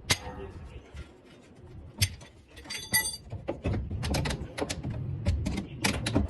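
Whirlpool washing machine making a strange noise: irregular knocks and clicks, with a short metallic ring about three seconds in.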